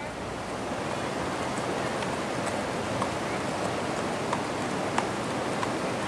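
Hooves of a herd of cattle and horses clopping on a wet paved road, scattered sharp clops every half second to a second, over a steady rushing hiss.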